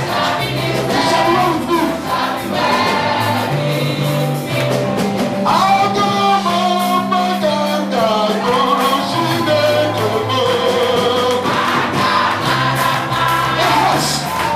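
Gospel music with a choir singing over a steady bass line and drums.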